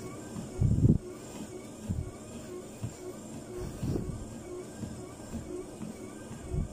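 Motorized treadmill running steadily, with the walker's footsteps thudding on the moving belt, the heaviest thud about a second in.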